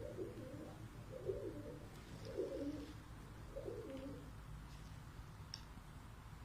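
Domestic pigeon cooing, four low coos about a second apart.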